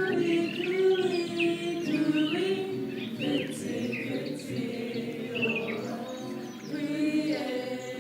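A group of voices singing a slow tune in harmony with held notes, with short chirping bird calls and whistles over it.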